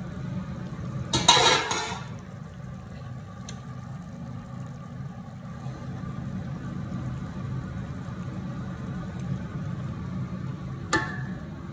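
A steady low hum throughout. About a second in, a stainless steel pot lid clatters loudly for under a second, and near the end there is one sharp metallic tap.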